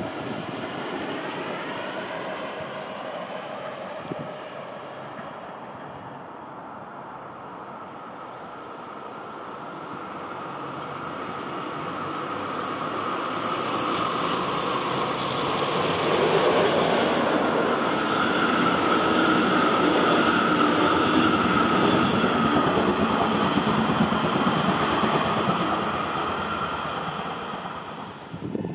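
Electric locomotive hauling double-deck coaches approaching along the line, its running noise growing steadily louder and peaking in the second half. Around the loudest part, a steady high whine rides over the rolling rumble of wheels on rail.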